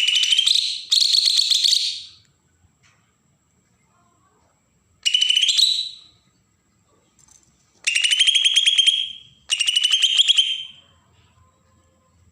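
Kalimantan cucak ijo (green leafbird) giving its harsh, buzzing 'besetan' rattle call: five bursts of about a second each, each one a fast run of pulses that rises slightly in pitch at its start.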